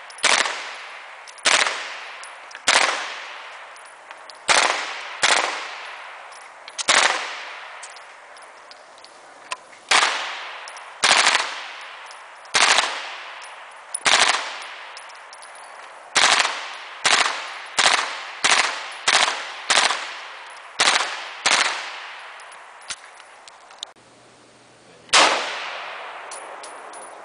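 Single shots from a Heckler & Koch MP5-type gun, about twenty of them, unevenly spaced and coming faster for a stretch past the middle, each followed by a ringing echo off the range. After a short lull near the end comes one more single shot.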